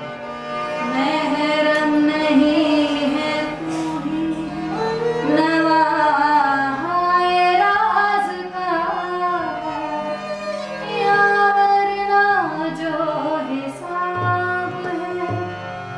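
A woman singing a slow, ornamented melody to harmonium, with tabla and a bowed sarangi accompanying; low tabla strokes come in near the end.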